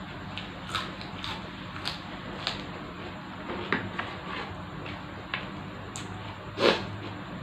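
Close-up eating sounds of glass noodle soup being eaten: short wet chewing smacks about twice a second, with one louder wet smack near the end.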